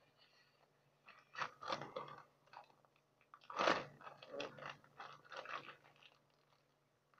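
Plastic zip-top bag crinkling and crackling in the hands as its seal is pressed shut, in a string of short bursts, the loudest about three and a half seconds in.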